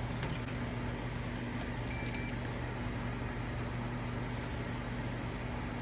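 Steady low electrical hum over a background hiss, with one brief faint high beep about two seconds in and a few light clicks.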